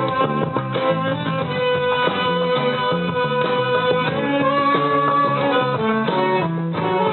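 Live instrumental music at a rehearsal: guitars playing rhythmic chords under a held, slowly moving melody line.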